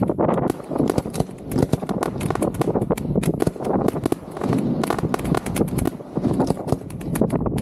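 Fireworks being fired at close range from the firing site: a rapid, unbroken run of bangs and crackles as shells launch and burst.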